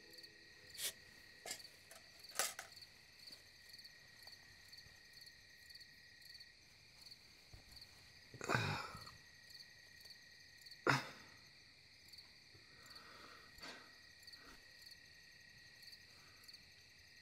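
Crickets chirping steadily, with a handful of short scraping thuds of a shovel cutting into earth, the loudest about nine and eleven seconds in.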